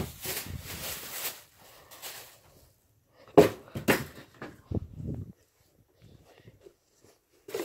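Plastic packaging rustling for a second or so, then two sharp knocks about half a second apart and a few softer bumps, as things are handled and moved.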